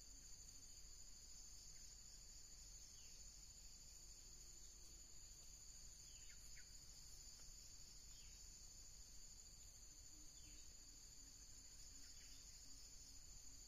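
Faint, steady high-pitched insect chorus, two continuous shrill bands with no break, with a few faint short falling chirps every couple of seconds.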